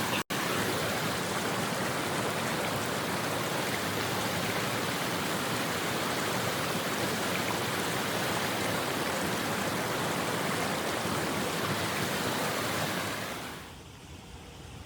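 Steady, loud rushing noise with no pitch or rhythm, broken by a split-second dropout just after the start. It falls away to a much quieter hiss near the end.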